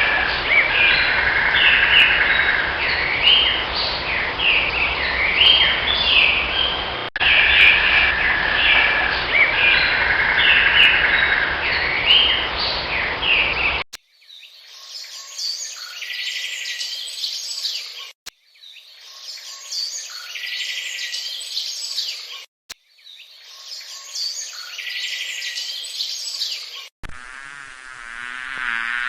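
High-pitched animal chirping with a buzzing trill underneath, in a short clip that repeats. The clip changes to a thinner version about halfway, which repeats three times, and a different wavering sound takes over near the end.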